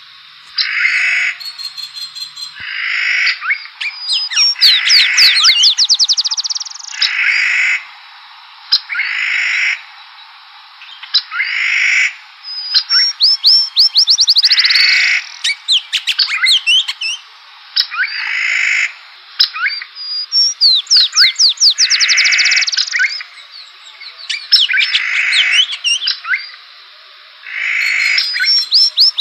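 Songbird singing: a buzzy phrase repeated about every two seconds, with fast runs of short, high trilled notes in between.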